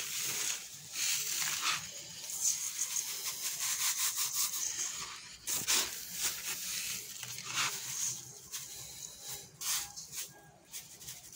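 Paper feed sack rustling and granular phosphate being poured and scooped into a stainless steel bowl, an orange plastic scoop scraping through the grains: uneven rustles and scrapes that thin out in the last few seconds.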